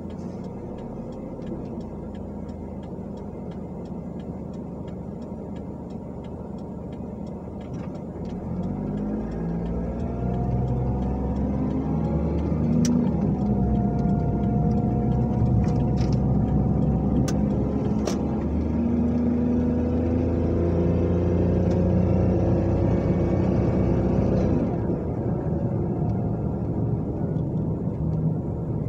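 Car engine idling while stopped, heard from inside the cabin, then pulling away about eight seconds in, the revs climbing in steps through the gears with growing road rumble. It holds a steady cruise and eases off a few seconds before the end, with a few sharp clicks in the middle.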